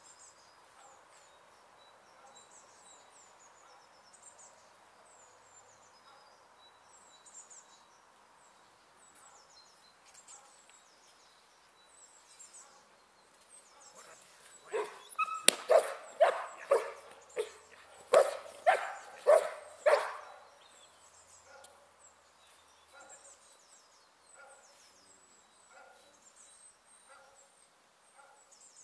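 A young protection-training dog barking hard, about ten barks in quick succession over some six seconds, starting about fifteen seconds in, as the helper shows himself from behind the blind. Small birds chirp faintly throughout.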